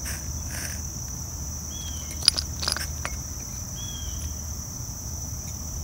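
Steady high-pitched trill, with three faint short chirps about two seconds apart and two sharp clicks a little past two seconds in.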